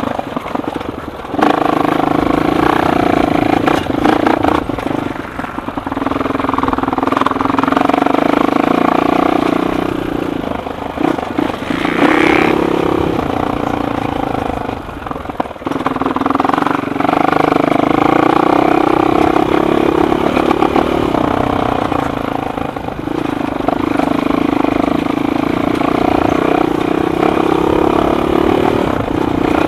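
Suzuki LTR 450 quad's single-cylinder four-stroke engine running under way, its pitch rising and falling as the throttle is opened and eased off, with a few brief let-offs.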